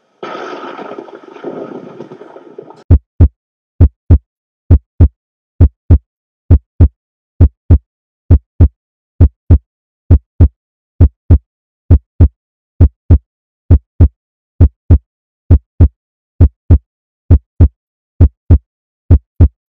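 Heartbeat, a steady deep lub-dub: paired thumps about once a second, beginning about three seconds in after a short stretch of hissing noise.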